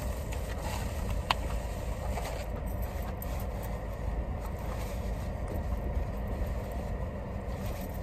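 Steady low rumble of a car, heard from inside the cabin, with one brief sharp sound about a second in.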